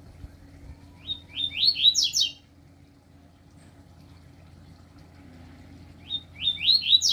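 A breeding male songbird singing a short phrase of about six quick slurred notes that step up in pitch and speed up, sung twice about five seconds apart.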